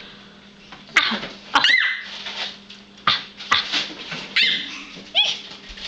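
Baby squealing and making breathy, excited noises with her fingers in her mouth: a few short high-pitched squeals that rise and fall, between huffing bursts.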